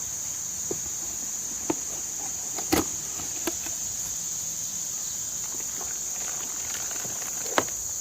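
Steady high-pitched insect chorus, with a few short sharp knocks, the loudest near the end.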